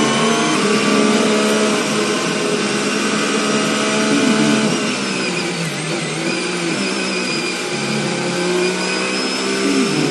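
Formula 1 car engine heard from the driver's seat, running hard at high revs with a dense, buzzing note whose pitch wavers up and down.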